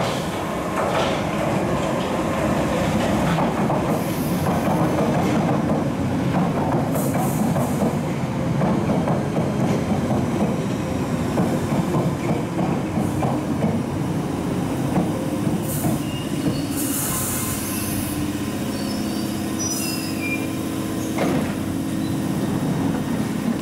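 London Underground Piccadilly line 1973 Stock train pulling into the platform over curved track and slowing: a steady rumble of wheels on rail with wheel squeal. Short high squeals and a burst of hiss come about two-thirds of the way through.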